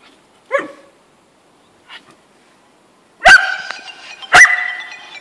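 American Staffordshire Terrier barking twice, loud and sharp, about a second apart in the second half, after a shorter, quieter call near the start.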